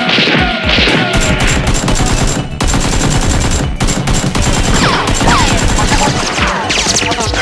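Rapid, sustained bursts of gunfire sound effects from a staged Nerf gun battle, with background music underneath.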